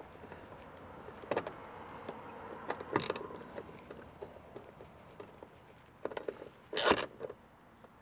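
A bolt being hand-driven into a car door panel with a socket driver: faint scraping and scattered clicks of the tool, with sharp knocks about a second and three seconds in and a louder knock near seven seconds.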